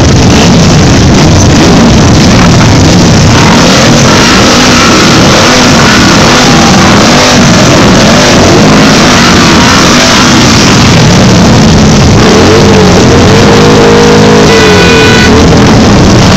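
Many Harley-Davidson V-twin motorcycle engines running together at parade pace, loud and distorted, their pitch rising and falling as the riders roll the throttle. A steady pitched tone sounds for a few seconds near the end.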